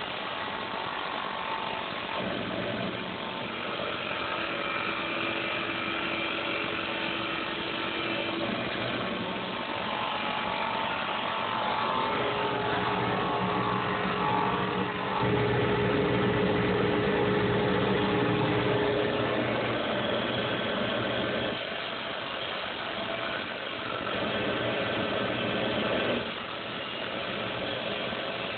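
Small CNC lathe running, its motor and spindle humming steadily while the tool turns a duck call barrel. Held tones come and go as the cut proceeds, and the sound grows louder for several seconds around the middle, then drops back in steps.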